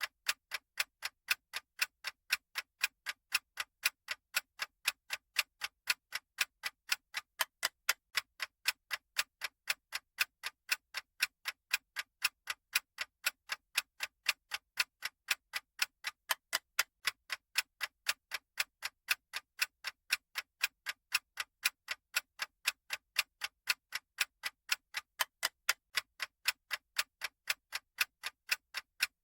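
Clock-style ticking sound effect of a countdown timer: sharp, even ticks at about two a second, steady and unchanging.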